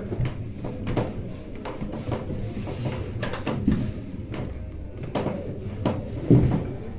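A heavy clothes iron pushed and slid over cotton fabric on a wooden cutting table, scraping, with several knocks as it is lifted and set down; the loudest thud comes near the end.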